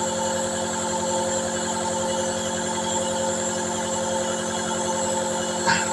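Nebulizer compressor running steadily, a rapid even buzzing hum with fixed tones, as it mists medicine for a toddler's dry cough. A brief sharp sound near the end.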